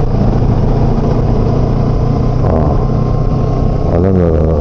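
Motorcycle engine running steadily while riding, with a steady rush of wind and road noise.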